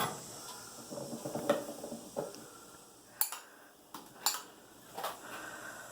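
A spoon clinking and scraping against a bowl of microwaved chili as it is stirred, with a few separate sharp clicks.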